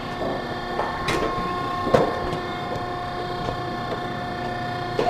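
Steady hum of shop machinery, with two light knocks about one and two seconds in as sheet-metal duct pieces are handled.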